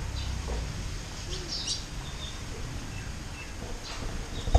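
Birds chirping in short, scattered calls, several over a few seconds, over a steady low background rumble.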